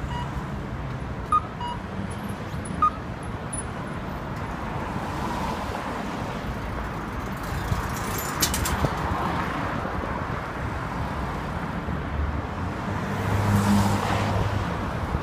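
Steady city road traffic with cars passing, and one vehicle's engine rumbling louder near the end. A few short, evenly spaced high blips sound in the first three seconds.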